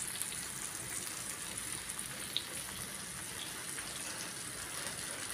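Butter sizzling as it melts and foams in a small frying pan: a steady crackling hiss, with a couple of faint ticks in the middle.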